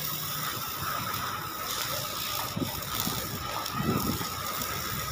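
Mobile crane running at a steel-frame construction site: a steady mechanical noise with a faint high whine through it, and a couple of low knocks in the middle.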